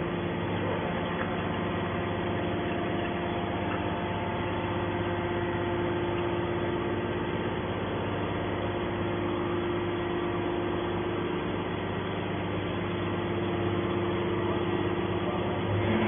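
A 200-ton hydraulic scrap metal baler running steadily, its hydraulic pump motor giving a constant hum that holds the same pitch throughout.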